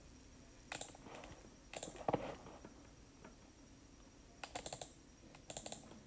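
Faint, quick clicking in four or five short bursts of several clicks each, like keys or buttons being pressed.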